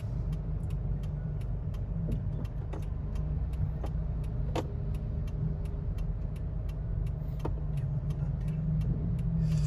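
Car driving along, with a steady low rumble of engine and road noise. A faint, regular ticking about three times a second runs through it.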